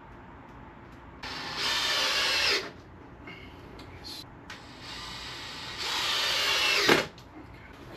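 Power drill running in two bursts, about a second and a half and then about two and a half seconds long, in woodworking on a timber frame. The second burst stops abruptly.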